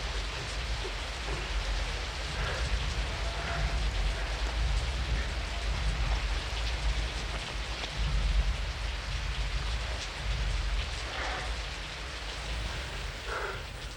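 Heavy rain falling steadily, with a deep low rumble underneath that rises and falls.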